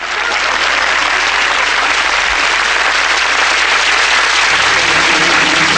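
Sitcom studio audience applauding, a steady, dense clapping that starts abruptly and holds throughout, over a faint low hum.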